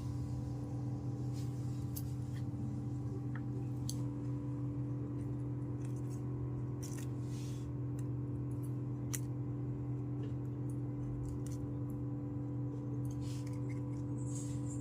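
Small toy kitchen pieces being handled: scattered light clicks and a few brief rustles over a steady low hum.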